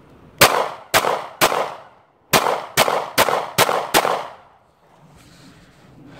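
Ruger SR9C 9mm pistol firing eight shots: three about half a second apart, then after a short pause five more in quicker succession.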